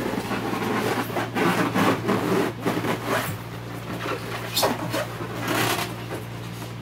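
Polystyrene foam packing insert scraping, creaking and squeaking against the cardboard walls of a large box as it is worked loose and lifted out, with a few sharper squeaks near the end, over a steady low hum.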